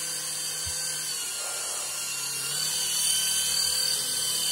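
Hand-sensing LED flying ball's tiny propeller motors running with a steady high whine, a little louder about three seconds in.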